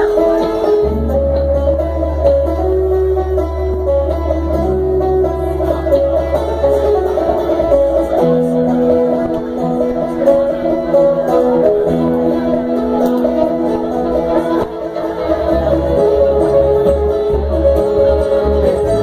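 Live bluegrass band playing an instrumental passage: picked banjo and acoustic guitar over upright bass notes, with fiddle.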